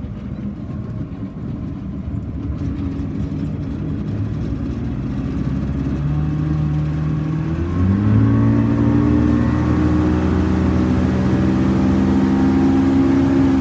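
Motorboat engine accelerating under load as the boat is brought up onto the plane: the engine sound grows louder, climbs sharply in pitch about eight seconds in, then holds steady at planing speed.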